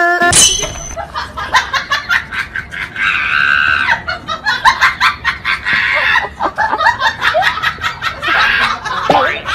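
People laughing loudly and continuously.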